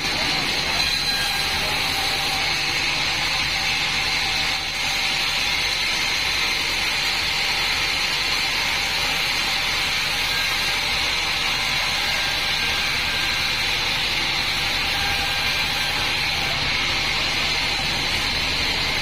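Bandsaw36 band saw mill running steadily while sawing mahogany, a constant high whine over a loud even noise.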